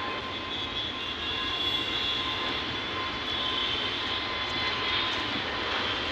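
Jet airliner engines running steadily, heard from inside the cabin: an even rushing noise with a steady high whine over it.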